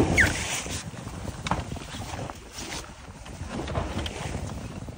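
Wind buffeting the microphone over the noise of a small boat on the sea, with a few scattered knocks.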